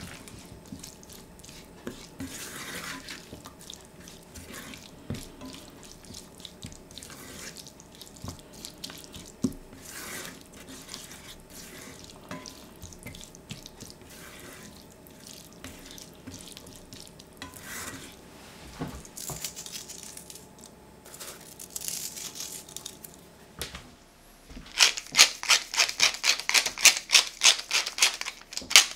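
A silicone spatula stirring and scraping chopped spring onions and chilli around a stainless steel frying pan, with scattered light knocks. Near the end a pepper mill grinds black pepper in a quick, even run of clicks, about five a second, louder than the stirring.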